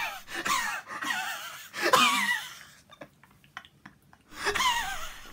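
A woman's wordless vocal sounds, moans, sighs and gasps that glide in pitch. There is a brief lull about three seconds in, then another short breathy sound near the end.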